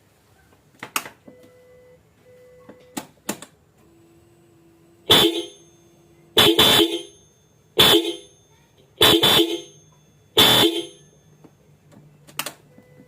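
Pair of Hella Classic disc horns sounding a series of short honks: about seven blasts, some in quick pairs, starting about five seconds in after a few light clicks. The horns have a full, car-horn-like tone, heard stereo from left and right.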